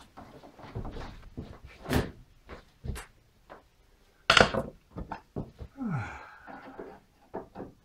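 Irregular knocks and clicks of a screwdriver and hands working on a caravan's roof-hatch frame while screws are taken out, with one louder thunk about four and a half seconds in.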